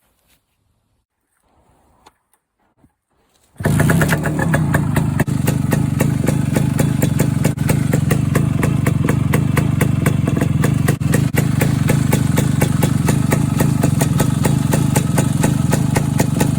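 Suzuki K125's single-cylinder two-stroke engine cuts in abruptly about three and a half seconds in, after a few faint handling noises, and then runs steadily with rapid, even firing pulses. The muffler has been reassembled with a burnt-out baffle and a new muffler joint to cure an exhaust leak.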